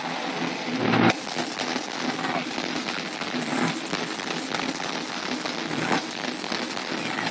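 Loud crowd noise at a heavy-metal concert, picked up by an overloaded phone microphone that turns it into a dense, crackling distortion, with a louder burst about a second in.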